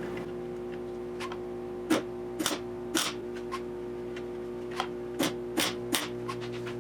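Irregular sharp knocks and clicks, about eight, from a steel quarter valance panel and tools being handled, over a steady hum.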